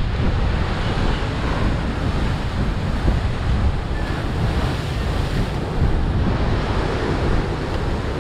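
Heavy ocean surf breaking and washing over shoreline rocks, a steady rushing with wind buffeting the microphone.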